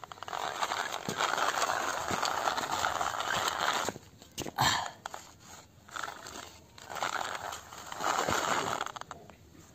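Wired remote-control toy car driving on rough concrete: its small electric motor and plastic gears whirring and its plastic wheels rolling. It runs for about three and a half seconds, then moves in several short spurts with pauses between.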